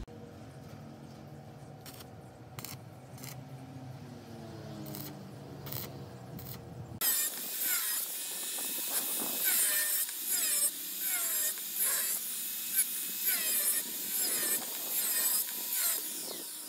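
A low steady hum. About seven seconds in, an angle grinder with a cut-off disc starts cutting square steel tubing into short pieces, its whine dipping and recovering in pitch again and again as the wheel bites into each cut.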